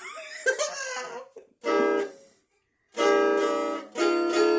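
Guitar played clumsily by a novice: a short chord about a second and a half in, a brief silence, then two longer ringing chords.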